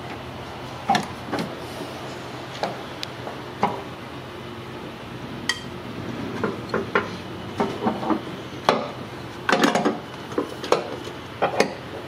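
Metal socket wrench and socket clinking and knocking against the engine as a tight 13 mm timing-cover bolt is worked loose. Scattered sharp clicks, busier near the end, over a steady low hum.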